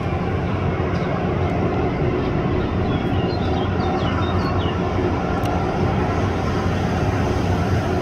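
Steady jet noise from a Boeing KC-135R Stratotanker's four CFM56 (F108) turbofan engines as the tanker rolls out along the runway after landing.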